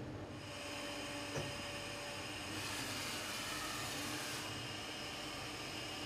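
Studer S33 CNC cylindrical grinding machine running, its grinding wheel spinning with a steady hum and hiss. There is a single click about one and a half seconds in, and the hiss grows louder for about two seconds midway.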